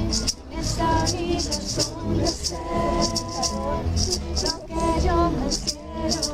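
Music: a song with a melodic line over a bass line, with a shaker ticking out the rhythm.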